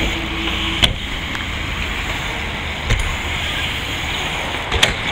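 BMX bike riding back and forth on a halfpipe ramp: a steady rolling rush of the tyres on the ramp, with three sharp knocks about two seconds apart as the bike hits the ramp's lip or lands.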